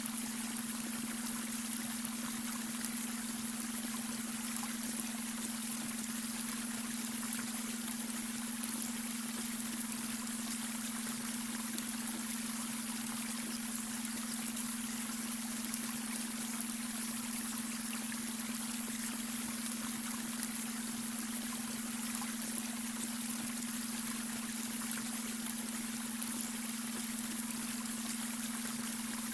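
Babbling brook running steadily. Under the water there is a continuous low steady hum, the beta brainwave tone.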